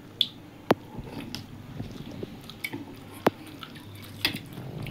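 People eating rice and fish by hand: chewing and mouth noises, with several sharp clicks, the loudest soon after the start, at about three seconds and near the end.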